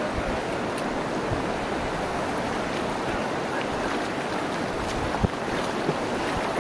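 Steady rush of whitewater rapids, with a single sharp knock about five seconds in.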